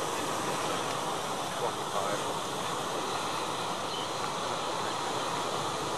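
Ocean surf along the beach: a steady rushing wash of waves with no distinct breaks.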